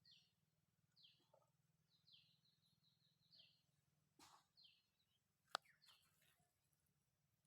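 Faint bird calls: short, falling chirps repeating about once a second, over a low steady hum. A single sharp click sounds about five and a half seconds in, the loudest thing heard.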